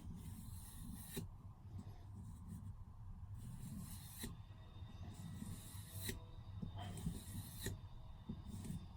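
Japanese knife blade drawn along a strop in slow strokes: a faint rubbing hiss that comes and goes stroke by stroke, with a light tick now and then, honing the freshly sharpened edge.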